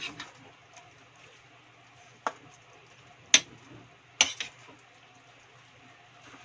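Spatula knocking and scraping against a wok while stirring cabbage, carrots and mussels: a few sharp clacks a second or so apart over a faint low hum.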